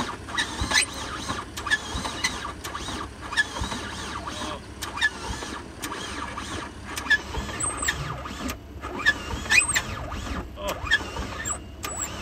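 Car engine running with caulking adhesive in its crankcase in place of oil, giving repeated high squeals and sharp clicks, one or two a second, over a steady rumble. It is the sound of an engine starved of lubrication, which the owner calls just cooked.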